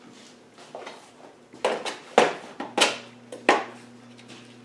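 A small parts box of split pins being handled and opened on a workbench: about six sharp clicks and clatters of the box and the small metal pins inside.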